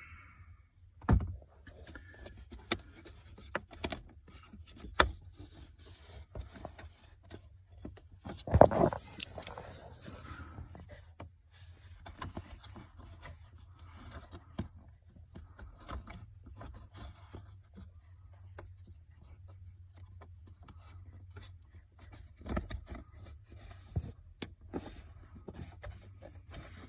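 Plastic dashboard trim and small screws being handled by hand: scattered clicks, taps and scraping of plastic, with a knock about a second in and a louder clatter around a third of the way through.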